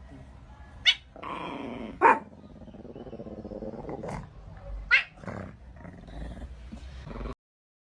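A pet growling low and rough, broken by three short, sharp cries. It cuts off abruptly near the end.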